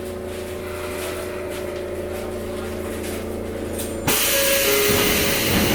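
Sotetsu 8000 series train standing at the platform, its onboard equipment giving a steady hum. About four seconds in, the unmodified door mechanism opens the doors with a loud, sudden hiss, and two short low chime notes sound.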